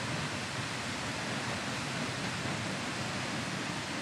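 Steady rushing of the Seljalandsfoss waterfall, an even unbroken noise.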